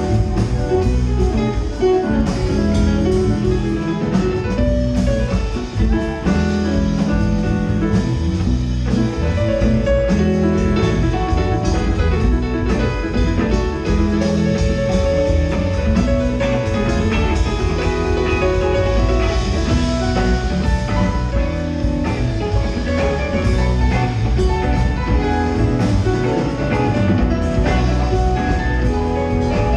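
Live band playing an instrumental jam at a steady level: electric guitars, keyboards and a drum kit.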